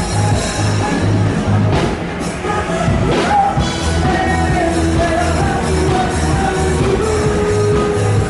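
Loud music with a steady bass beat about twice a second and a singing voice over it.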